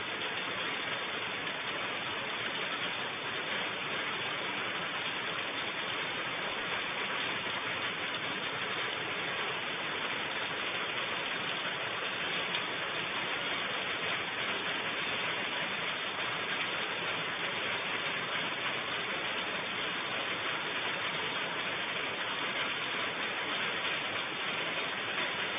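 Steady, even hiss of falling rain, with no separate sounds standing out.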